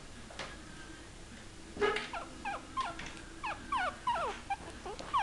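Young puppy whimpering: from about two seconds in, a quick string of short high squeaks, each falling in pitch.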